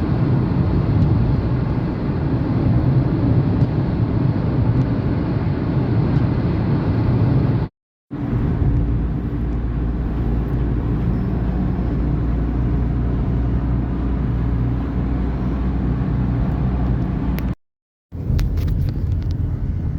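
Car driving at speed with a steady road and engine drone. It drops out twice, briefly, where the footage is cut.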